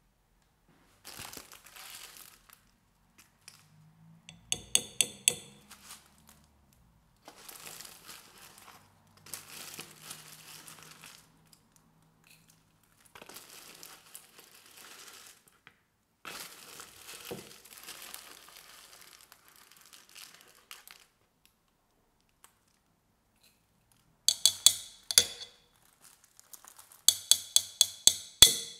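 Foil tea packets crinkling in several short bursts as loose green tea leaves are spooned out. A small metal spoon clinks against the glass French press carafe in quick runs of taps, once a few seconds in and twice near the end.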